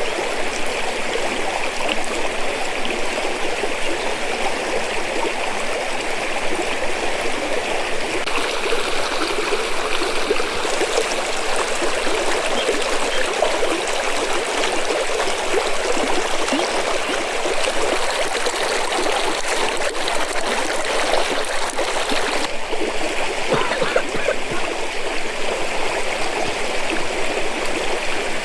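Steady rushing and trickling of flowing stream water, its texture shifting slightly a few times.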